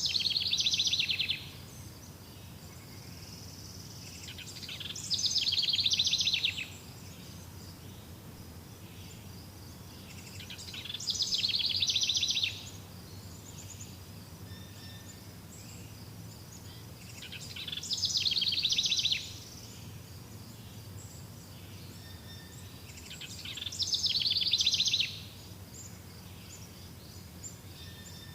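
A songbird singing the same short song five times, about every six seconds: each one builds up and ends in a fast trill about a second and a half long, then stops abruptly. Under it runs a faint, steady high chirring and a low background rumble.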